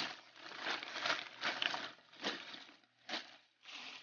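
A large white plastic bag rustling and crinkling in a series of irregular bursts as it is pulled open and handled.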